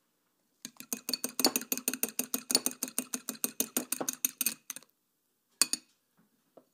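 A metal fork beating eggs in a glass bowl, its tines clicking rapidly and evenly against the glass at about nine strokes a second. The clicking stops about five seconds in, followed by a short second burst of strokes.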